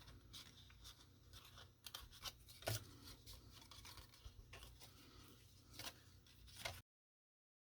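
Faint rustling of paper being handled and pressed down while gluing, with a few light clicks and taps, one about three seconds in and two near the end. The sound then cuts off to dead silence.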